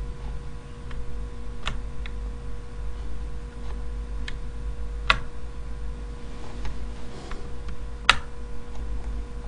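Scattered single clicks from working a computer, three of them louder, spaced a few seconds apart, over a steady low electrical hum.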